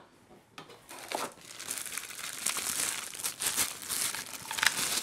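Packaging being handled as vacuum-cleaner accessories are unpacked: irregular rustling that starts about half a second in and gets busier toward the middle.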